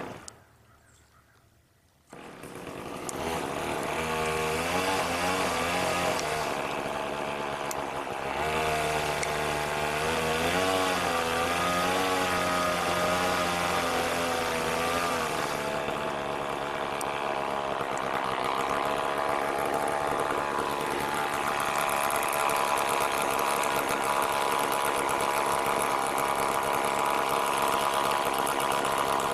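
Chainsaw engine starting about two seconds in, revving up and down, then running steadily at high speed.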